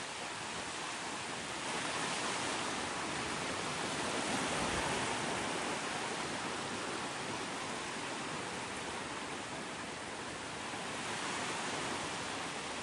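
Sea waves washing onto a beach: a steady rush of surf that swells about two seconds in and again near the end.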